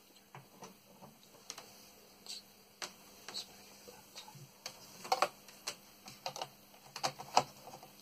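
Scattered light clicks and taps of a USB cable being handled and plugged into a port, with cables knocking against the equipment; the loudest knocks come about five and seven seconds in.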